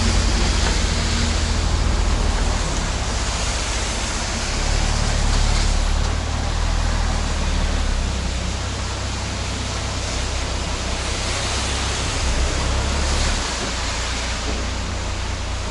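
Volvo EW60E wheeled excavator's diesel engine running steadily, heard from inside the cab: a deep, even rumble under a broad hiss.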